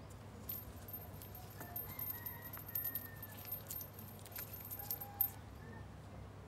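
Gloved hands handling and flexing a clear plastic airbrush air hose: soft rubbing and light clicks with a few faint short squeaks, the loudest a sharp tick about five seconds in.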